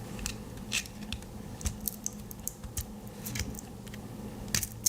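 Light, irregular clicks and taps of a Victorinox Swiss Army knife being handled, its metal tools and a small neodymium magnet clicking against the knife, with a sharper double click near the end.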